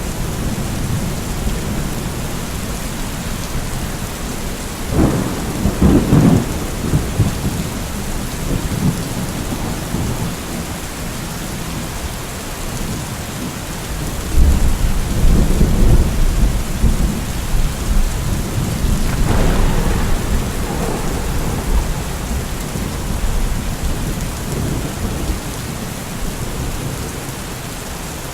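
Steady heavy rain with thunder: a crack of thunder about five seconds in, a deep low rumble around the middle, and another clap about two-thirds of the way through.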